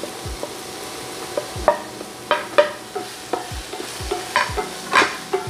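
Diced onions sizzling in olive oil in a frying pan while a utensil stirs them, knocking and scraping against the pan a dozen or so times at an uneven pace.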